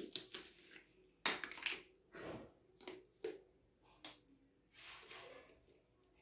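Painting tools and materials being handled while yellow paint is taken up: a string of short, irregular scrapes and light clicks, the loudest about a second in.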